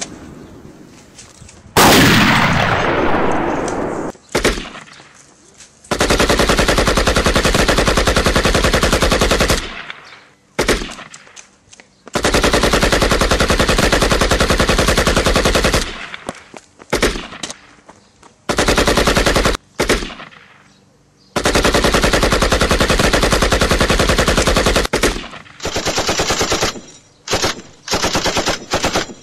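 Machine-gun fire sound effects: several long bursts of rapid shots, each lasting a few seconds, with shorter broken bursts near the end. A single loud blast about two seconds in.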